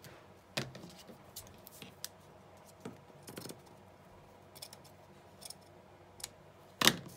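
Paper and craft materials being handled on a desk: scattered short rustles and clicks, with one louder snap about half a second in and the loudest near the end.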